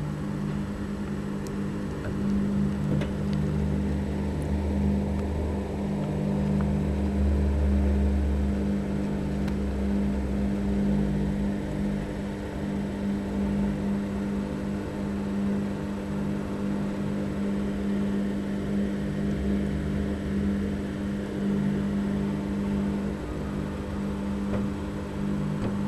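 A steady low hum with a deeper rumble that swells and fades, loudest in the first half and again near the end.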